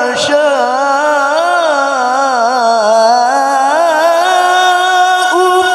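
Male qari's voice through a microphone, chanting one long melismatic phrase in the ornamented style of Qur'anic tilawah. The pitch winds up and down in quick turns, and a new phrase starts near the end.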